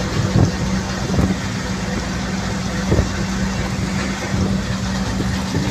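Ashok Leyland tipper truck's diesel engine running steadily on the highway, heard from inside the cab as a constant hum over road and wind rumble, with a few short knocks and rattles.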